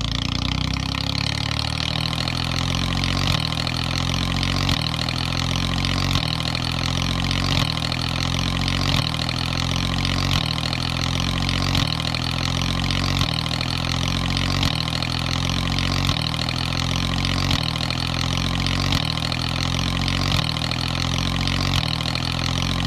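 Tractor engine running steadily, a sound effect laid over toy tractors, repeating in an even cycle about every second and a half.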